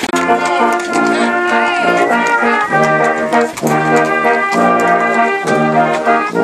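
A church brass choir (Posaunenchor) of trombones and trumpets playing held chords in phrases, with short breaks between them.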